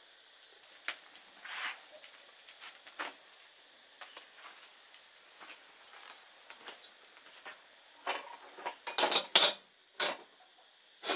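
Knocks and scrapes of a large metal wok being handled and set upside down over a grill rack on a wood stove, in a cluster of louder hits near the end after scattered smaller clicks, with a few small high chirps of birds partway through.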